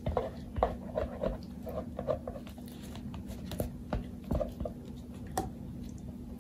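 Light, irregular clicks and soft knocks from a plastic container of thick soap batter being handled and tipped for pouring, over a faint steady hum.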